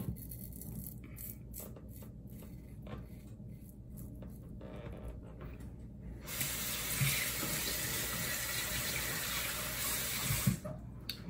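A few faint scrapes of a safety razor on stubble, then a bathroom sink tap turned on about six seconds in. The water runs steadily into the basin for about four seconds and stops shortly before the end.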